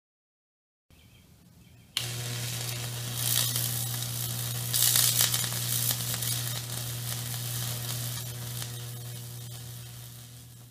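High-voltage Lichtenberg figure burning: the electric arc sizzles and crackles as it burns through the wooden board, over a steady low transformer hum. It switches on suddenly about two seconds in and fades toward the end.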